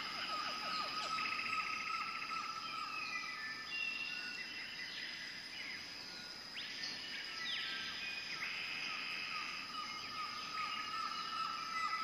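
Nature ambience of birds chirping and trilling, several different calls coming and going, over a steady high-pitched hum.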